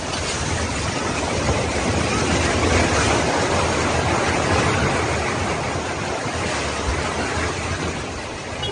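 Building collapsing in an earthquake: a dense, steady rushing rumble of falling debris that swells a few seconds in and eases toward the end.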